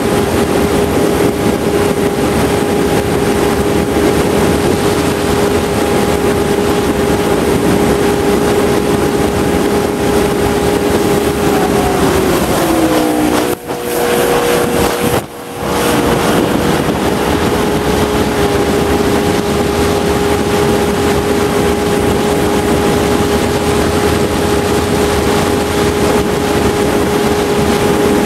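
Motorboat engine running steadily at cruising speed under a constant rush of wind and water. About twelve seconds in its pitch dips briefly. Two short dropouts follow before it settles back to a steady tone.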